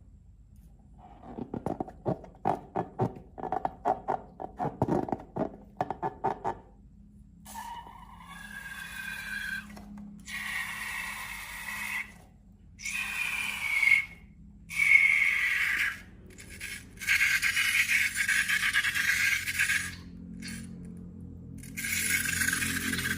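Slime being handled: first a run of rapid wet crackles and pops as it is squished, then several stretches of squeaky scraping and rubbing that break off abruptly.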